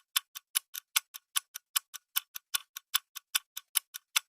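Countdown timer sound effect: a clock ticking fast and evenly, about five ticks a second, alternating louder and softer like a tick-tock.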